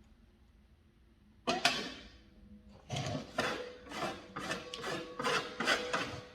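Putty knife (spatula) scraping wood filler across a wooden stair nose in short strokes: a couple of strokes about a second and a half in, then a quick run of about eight strokes from about three seconds in.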